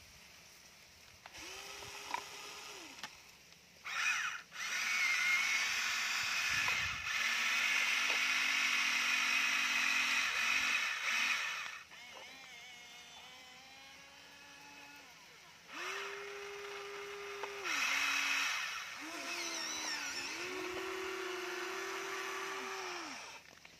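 Huina remote-control excavator's small electric motors whining in short start-stop runs, each run rising and falling quickly in pitch, over a loud gear buzz.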